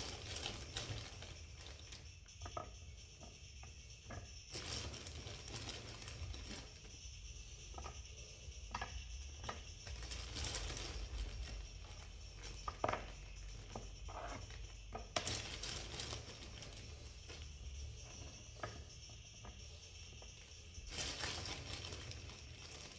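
Chips (fries) being laid out by hand on a metal baking tray: scattered light clicks and taps as they land and are shifted, with a few louder rustles.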